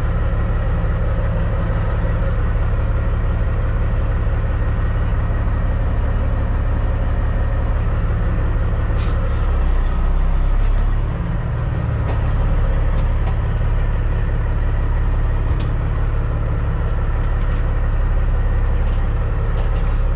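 Caterpillar C15 diesel engine of a Peterbilt 379 running steadily, heard from inside the cab. Its note dips and changes briefly about ten seconds in, and there is a single short click about nine seconds in.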